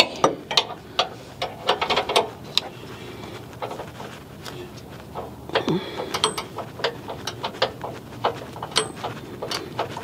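Ratcheting wrench clicking in quick irregular runs as the top nut of a rear stabilizer (sway bar) link is tightened by hand, with a sparser stretch in the middle.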